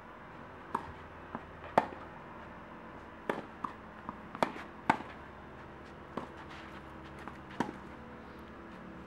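Tennis rally: rackets striking a tennis ball back and forth and the ball bouncing on a synthetic grass court, heard as about a dozen sharp pops at uneven intervals, the loudest a little under two seconds in.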